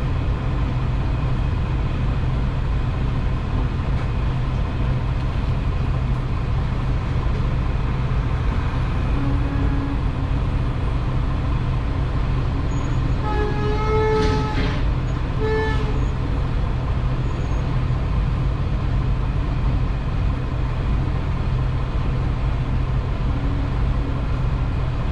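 Steady low rumble of an idling truck engine heard from inside the cab. About thirteen seconds in, another semi truck's horn honks twice, a longer honk and then a short one, a signal for the truck behind to back up.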